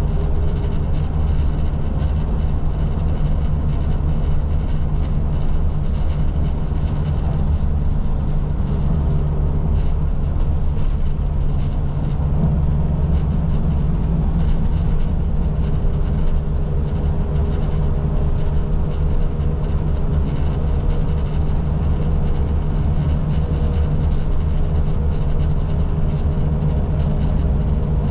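City bus running at a steady pace, heard from inside the cabin: an even low engine and road rumble that does not change.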